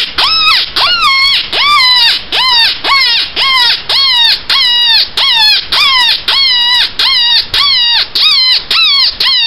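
Predator call sounding a rabbit distress call: a steady series of high, wavering cries, about two a second, each rising sharply and then falling away.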